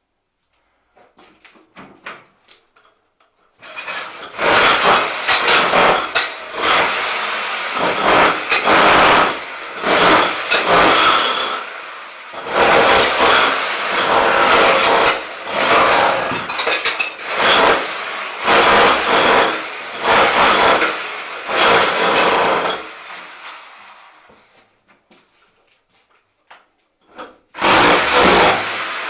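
Rotary hammer chiselling shower tiles off the wall in short repeated bursts, with the noise of tile and mortar breaking away. It starts a few seconds in, pauses for a few seconds near the end with only small clicks and knocks, then starts again.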